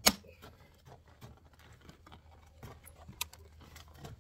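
A farrier's hammer strikes a size 7 horseshoe nail once at the start, driving it through a steel draft-horse shoe into the hoof wall. This is the last blow of a quick series. After it come only faint handling clicks and a single light tick about three seconds in.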